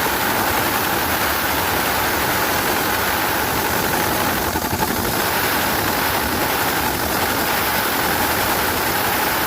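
Engine running steadily and loudly, a continuous machine drone.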